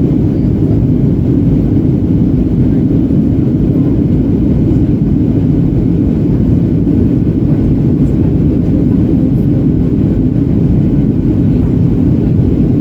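Steady cabin noise inside a Boeing 737-800 in flight: an even, low roar of airflow and its CFM56-7B engines heard from a window seat.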